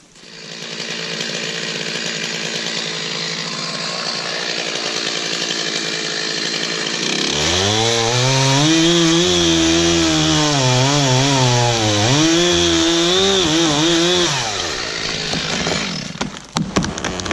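Chainsaw felling red maple trees: the engine runs at speed, then from about halfway through it bogs down and wavers in pitch as the chain works through the wood, and it drops off near the end.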